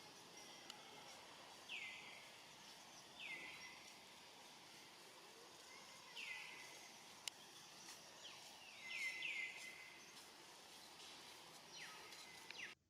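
Short high chirping calls, each falling in pitch, repeated every second or two with a quick run of three together just past the middle, over a faint outdoor background. A single sharp click comes about seven seconds in.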